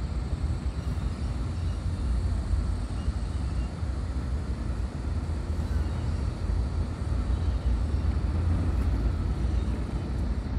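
Wind buffeting the camera's microphone: a steady, fluttering low rumble with a faint hiss above it.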